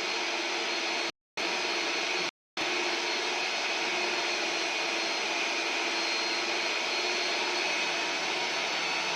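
A machine with a motor running steadily with a high whine over a continuous rushing noise. The sound drops out completely twice for a moment, about one and two seconds in.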